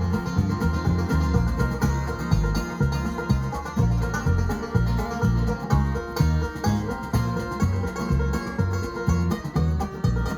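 Acoustic string band playing an instrumental bluegrass-style tune: bass notes on a steady beat under guitar, fiddle and percussion.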